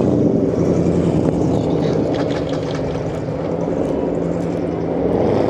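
A tuned car's engine revved hard at a soundcheck and held at high revs, very loud through the exhaust, with the revs climbing again near the end.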